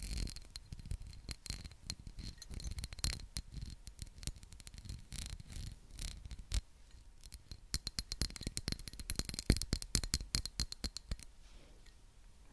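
Fingernails tapping and scratching on a gold perfume bottle held close to the microphone: scattered clicks, turning into quick runs of taps from about eight to eleven seconds in.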